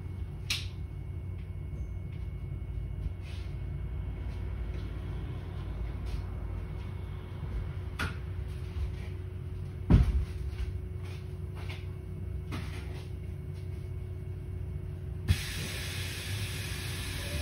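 MAN Lion's City 12C EfficientHybrid city bus standing at a stop: a steady low rumble with a steady hum over it, broken by a few sharp clicks and one loud thump about ten seconds in. A steady hiss starts near the end.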